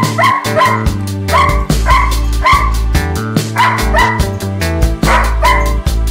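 Background music with short, high dog yips repeating in quick groups of two or three.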